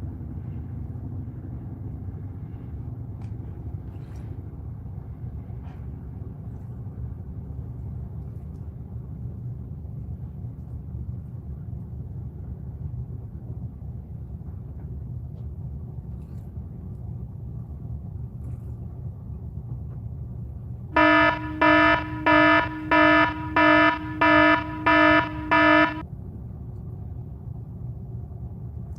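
Steady low rumble of a fishing boat's engine. About three quarters of the way in, an electronic alarm gives eight quick, evenly spaced beeps.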